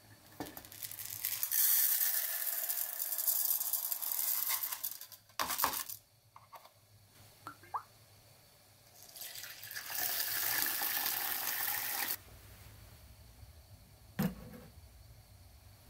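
Water poured twice, a few seconds each time, presumably onto the washed rice to cook it. Short knocks come between the two pours and once near the end.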